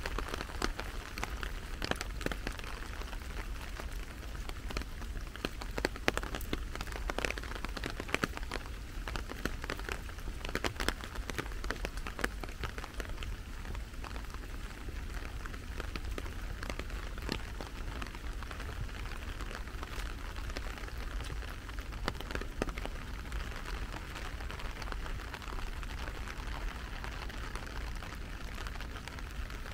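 Steady rain falling, with many sharp drop ticks scattered throughout.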